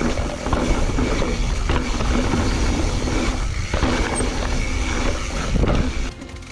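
Mountain bike rolling down rocky singletrack: tyres crunching over dirt and stones and the bike rattling over rocks, with wind rushing on the microphone. The noise eases about six seconds in.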